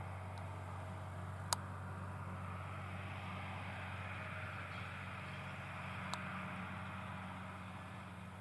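Tractor diesel engine running steadily while a John Deere 578 round baler works, a low steady hum with a mechanical rush over it. Two sharp clicks, about a second and a half in and again about six seconds in.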